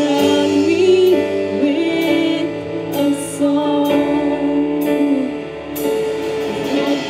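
Women singing a praise and worship song, accompanied by steady strumming on an acoustic guitar.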